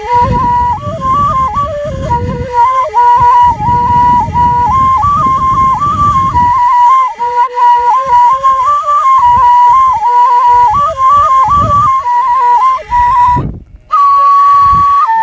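Kurdish shimshal (shepherd's flute) playing a quick, ornamented folk melody that steps between neighbouring notes. About thirteen seconds in there is a brief break for breath, then one long held note.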